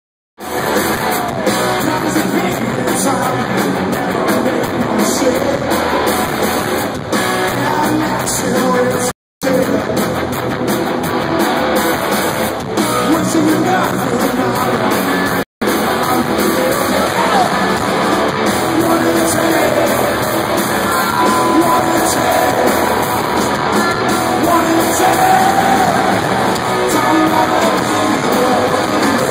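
Live rock band playing loud: electric guitars, bass and drums with a sung vocal, recorded on a phone in the arena crowd. The sound cuts out briefly twice, about nine seconds in and again at about fifteen seconds.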